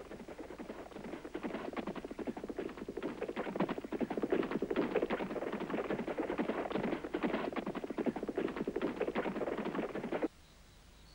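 A dense, irregular clatter of many hard taps, growing louder over the first few seconds and then cutting off suddenly near the end.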